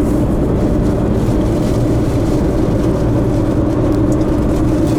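Steady engine drone and road noise heard inside a car cruising along a highway.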